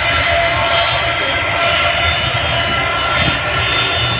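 Jet engines of a Boeing 757 airliner taxiing close by: a steady loud rumble with a high whine of several steady tones on top.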